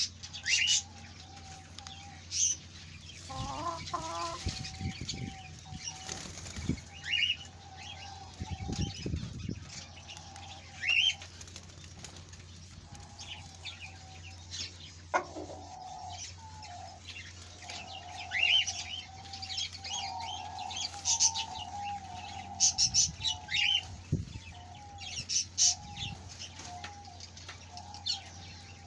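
Chickens in an aviary: feathers rustle and flap a few times as they preen, and a low, wavering chicken murmur carries on for long stretches. Short, quick rising chirps from small cage birds come throughout.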